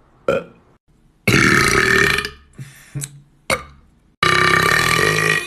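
A person belching loudly: two long burps of about a second each, one about a second in and one near the end, with a few short sounds before and between them.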